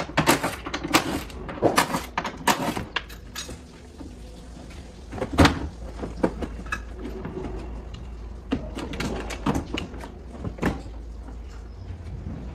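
Clicks, knocks and rattles from hand work on the plastic trim and rear hatch of a Toyota Vitz hatchback. The knocks come thick in the first three seconds, the loudest about five seconds in, and a few more later, over a steady low workshop hum.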